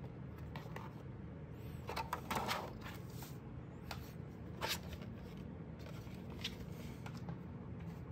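Hard plastic mini fan being handled: a few short knocks and scuffs as it is turned in the hands, set down on a table and picked up again, over a steady low hum.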